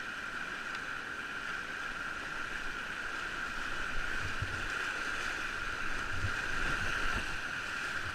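Whitewater rapids rushing steadily around a kayak being paddled downriver, with a few short low thumps from about four seconds in.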